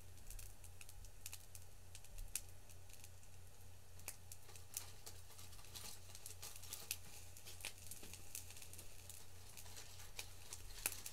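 Faint crinkling of plastic wrap being handled, with scattered light clicks, over a steady low hum.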